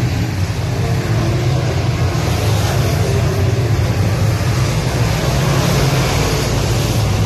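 A field of semi late model V8 dirt-track race cars running at racing speed together, their engines a loud, steady drone.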